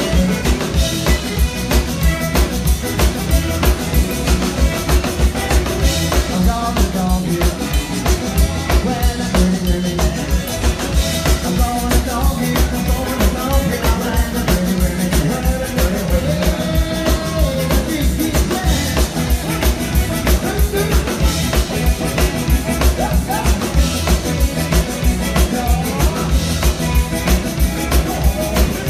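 Live zydeco band playing: two accordions (a piano accordion and a button accordion), a rubboard scraped in rhythm, electric guitar and a drum kit keeping a steady, driving beat.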